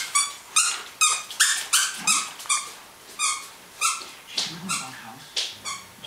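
Afghan hound playing with a toy, giving a run of short, high-pitched squeaks about two or three a second. The squeaks come further apart after about two seconds.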